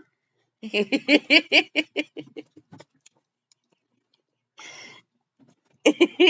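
A person laughing in quick bursts of 'ha-ha' that trail off, twice, with a short breathy sound between.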